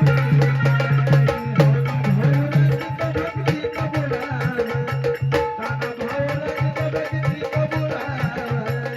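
Instrumental Indian folk music: a hand drum beats a fast, steady rhythm under a melody, with a low note that pulses on and off.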